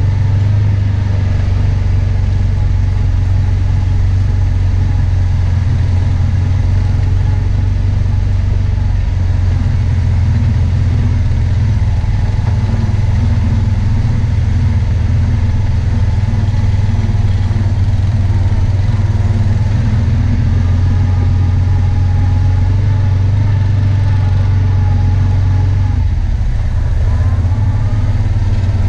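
Side-by-side UTV engine running steadily at low speed, heard from the driver's seat, with the engine note dipping briefly and picking up again near the end.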